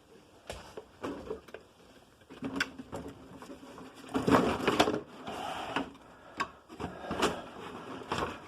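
Electric RC monster truck's motor whirring in short bursts, mixed with knocks and rattles.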